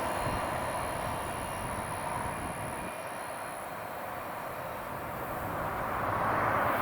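Freight train rolling past on the rails: steady wheel-and-rail noise that eases off in the middle, then swells again near the end. A faint high steady whine stops about halfway through.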